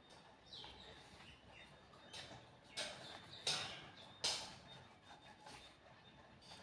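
A knife cutting rolled ragi dough makes three short, sharp scrapes against the plate, each a little under a second apart. Faint bird chirps sound in the background.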